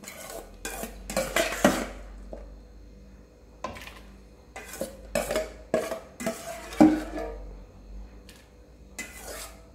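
Metal ladle clinking and scraping against an aluminium stockpot and a steel bowl as pork slices are stirred into water and scooped in, in irregular bursts of clatter.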